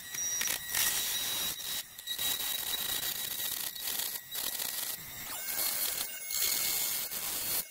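Oscillating multi-tool running, its blade sawing down the side of a whipped cream aerosol can with a harsh buzz and a high whine, stopping and starting several times as the cut goes.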